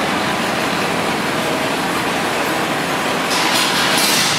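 Steady loud mechanical din on a car ferry's enclosed vehicle deck as cars drive past, with a louder hiss coming in near the end.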